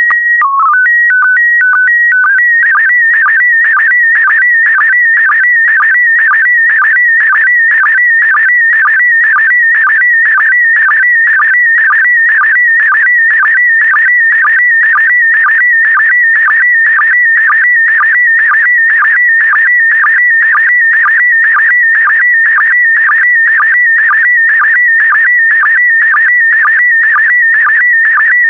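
PD120 slow-scan television (SSTV) transmission: stepped single header tones in the first couple of seconds, then the image data as a continuous warbling, chirping tone with a short sync pulse about twice a second.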